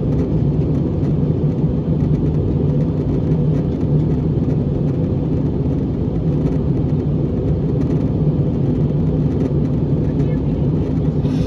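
Steady low drone of an Airbus A321 cabin in flight, engine and airflow noise heard from inside, with a constant deep hum and no change in level.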